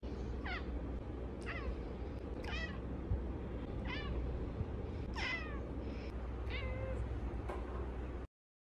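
Domestic cat giving a string of about seven short, high meows, each falling in pitch, roughly a second apart. A steady low hum runs underneath, and the sound cuts off suddenly near the end.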